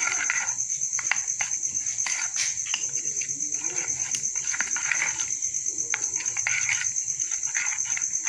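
A spoon stirring a wet yogurt and spice mixture in a bowl, with irregular clicks and scrapes against the bowl. Under it runs a steady high insect trill.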